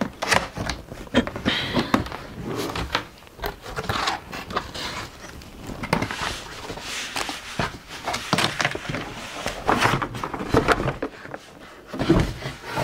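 Unboxing noise from a cardboard box: flaps and packaging rustling and scraping, with irregular knocks and clicks of hard plastic parts being handled. Near the end the plastic spin-mop bucket is lifted out of the box.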